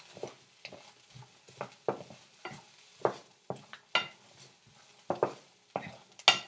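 Wooden spoon scraping and knocking against a nonstick frying pan as chopped onions are stirred, dry-sautéed in the hot pan with no oil or water. The strokes come irregularly, about two a second, and the loudest is near the end.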